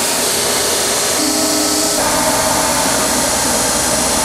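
Pedestal belt grinder running with a steel brake backing plate pressed against its abrasive belt: a loud, steady grinding hiss over the motor's hum. The tone shifts about two seconds in, as the pressure on the part changes.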